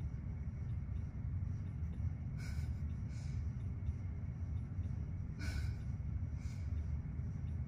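Steady low rumble with four short, soft breathy snuffles from kittens as one climbs over the sleeping pile.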